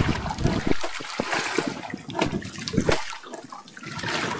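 Sea water sloshing and splashing against the hull of a small outrigger boat in uneven gushes, easing off for a moment about three seconds in; the waves are picking up.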